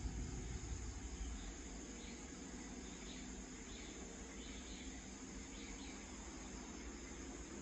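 Faint evening ambience of insects chirping in short, irregular calls over a low steady rumble and hiss.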